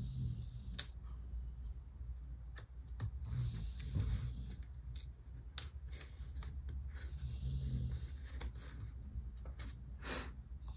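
Paper stickers and planner pages being handled on a desk: scattered light clicks and taps with short stretches of soft paper rustling.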